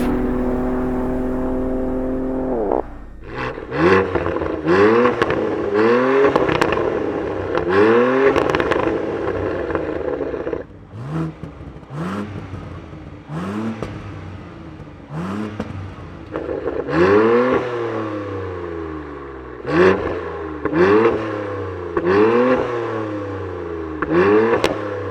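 BMW X3M's S58 twin-turbo inline-six through a Valvetronic Designs valved exhaust, held at a steady rpm for a couple of seconds before dropping. Then a series of quick throttle blips follows, each a short rise and fall in revs, about one a second, with sharp cracks on several of them.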